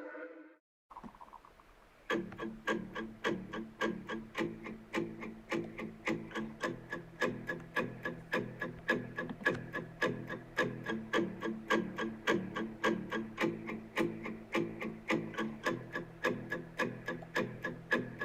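Instrumental song intro: guitar notes plucked in a steady, even pattern of about four a second, starting about two seconds in after a short gap.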